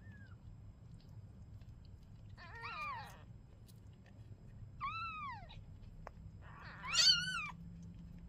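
Kitten meowing three times, each call falling in pitch at its end, the last one the loudest and highest.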